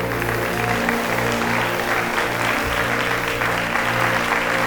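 Audience applauding, a dense steady clatter of clapping, over a sustained held musical chord.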